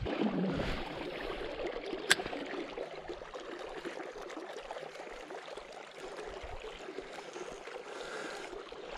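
River water flowing steadily, with a single sharp click about two seconds in.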